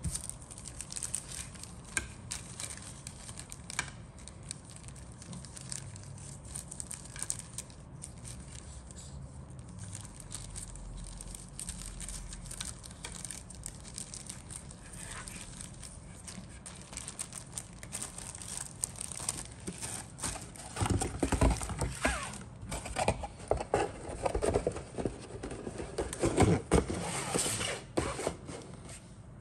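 Plastic model kit sprues clicking and a clear plastic bag crinkling as they are handled, with scattered light clicks at first and louder, busier crinkling over the last several seconds.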